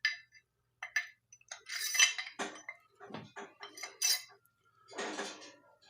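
Metal parts of a Stanley 14-inch pipe wrench clinking and scraping against each other as the wrench is put back together, in a series of short, irregular clinks and rasps.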